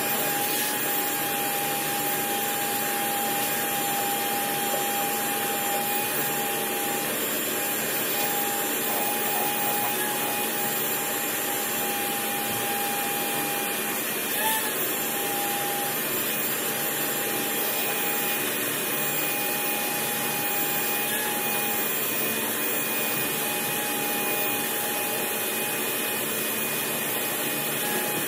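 Wet/dry shop vacuum running steadily while its hose sucks up loose foam debris from a fiberglass boat hull. Its whine wavers briefly now and then as the nozzle moves.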